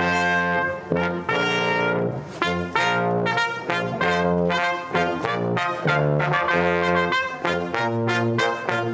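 Brass music: a group of brass instruments playing sustained chords, changing every second or so.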